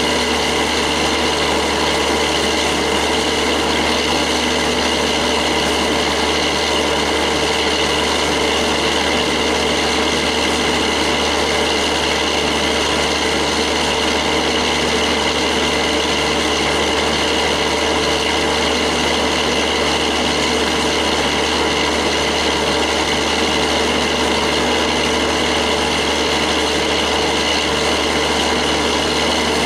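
Diesel railway engine idling: a loud, steady drone with an even low throb that does not change.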